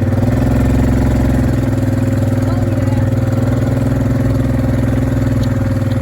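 Engine running steadily at a constant speed.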